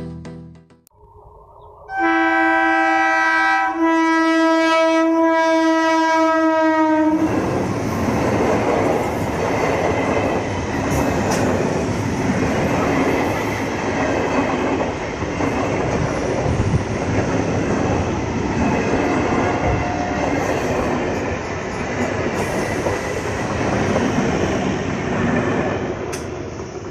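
Electric multiple unit local train's horn sounding about two seconds in, held for about five seconds with a brief break partway, then the train's wheels clattering over the rail joints as the coaches run past, fading near the end.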